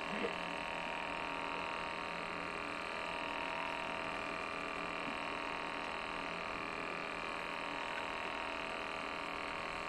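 A steady, unchanging hum with many fixed tones and no distinct events.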